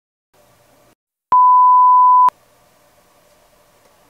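A single electronic beep: one steady pure tone lasting about a second, starting and stopping abruptly, loud against faint room hum.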